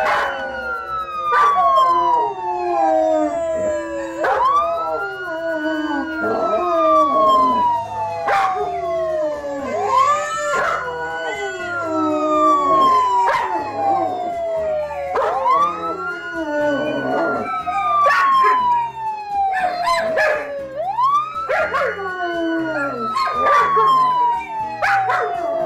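Emergency siren wailing, each cycle a quick rise followed by a slow fall, about every five and a half seconds, with a pack of dogs howling along to it and giving short sharp yelps.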